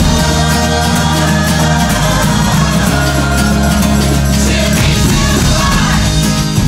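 Background music: a song with a full instrumental backing, playing loudly and steadily.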